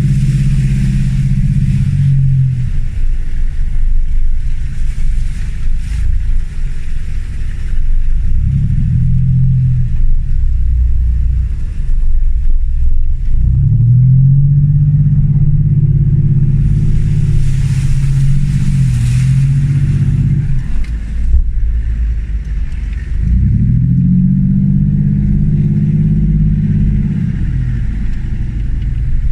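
Land Rover Discovery 1's 300Tdi 2.5-litre four-cylinder turbodiesel driving off-road, the revs rising and falling back about four times, over a constant heavy low rumble.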